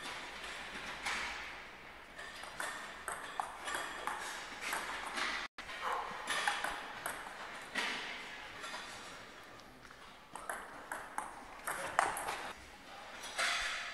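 Table tennis ball clicking off the bats and the table in quick rallies, the strikes coming in fast runs with short pauses between points.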